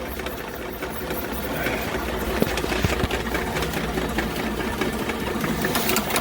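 Electric drain-cleaning machine running steadily, its snake cable spinning down the vent stack to clear a clogged main sewer line, with frequent small clicks and knocks.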